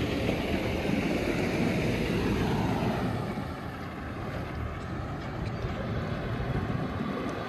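Semi-truck pulling an empty lowboy trailer away down the road, its diesel engine and tyres fading as it goes, with wind buffeting the microphone.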